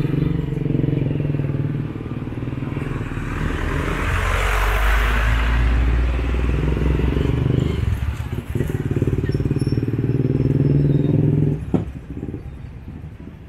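Motorcycle engine of a tricycle running steadily close by, with a noisy swell of passing traffic about four to six seconds in. The engine sound drops away abruptly near the end.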